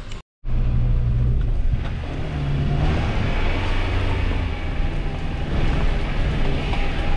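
Suzuki Grand Vitara engine running while the 4x4 drives an off-road track, with a steady rumble and an engine note that drops a little about three seconds in.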